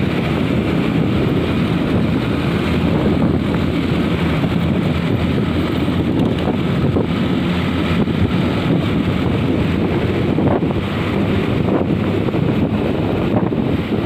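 Steady vehicle road noise, a dense, even rumble, with wind buffeting the microphone.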